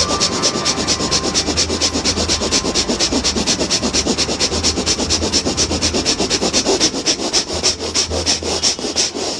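Bhastrika pranayama (bellows breath): a woman breathing in and out forcefully and very fast through both nostrils, an even rhythm of hissing breath strokes about four to five a second that stops just before the end.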